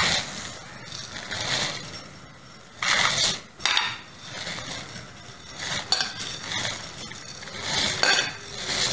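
Dry basmati rice poured in a series of short pours from a container into a steel pot of boiling water, each pour a brief hissing rush, with light clinks of the container against the pot.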